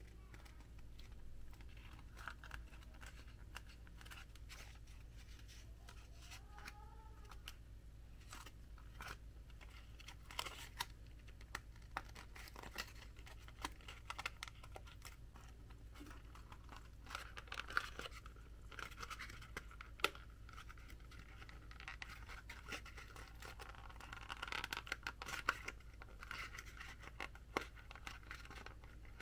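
Cardboard being handled and worked by hand: scattered light clicks and taps with a few short scratchy, tearing stretches, over a low steady hum.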